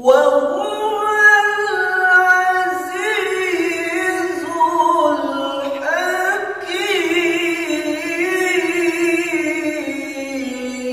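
A man's voice reciting the Quran in melodic tilawah style: long, drawn-out phrases that wind up and down in pitch. The voice comes in sharply at the start after a pause for breath.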